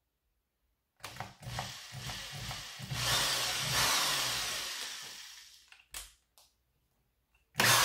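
Power drill running into the wall at a marked screw spot: it starts about a second in, runs for about four seconds, louder midway, then winds down. It starts again near the end.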